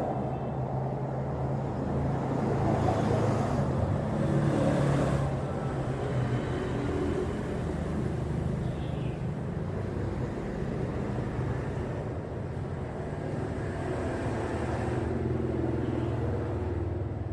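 A machine running steadily with a low hum, and a louder hiss for a couple of seconds starting about two and a half seconds in.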